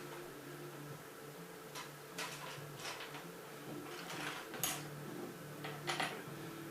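Plastic Lego pieces clicking and rattling as they are picked through by hand, a scatter of sharp clicks, the loudest about four and a half and six seconds in, over a steady low hum.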